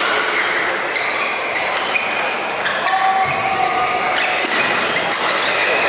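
Badminton doubles rally in a sports hall: rackets striking a shuttlecock several times, with a few short squeaks of court shoes on the mat, over the steady echoing noise of the hall.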